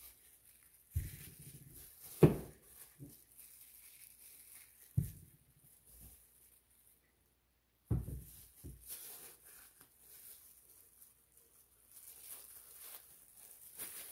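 Plastic paint cups and bottles being picked up and set down on a table: a few knocks and thumps, the loudest about two seconds in, with light crinkling of a plastic glove between them.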